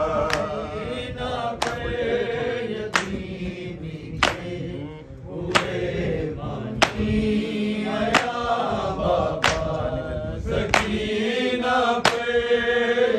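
Men's voices chanting a Shia noha lament together, kept in time by matam: sharp hand-on-chest slaps landing evenly about every 1.3 seconds.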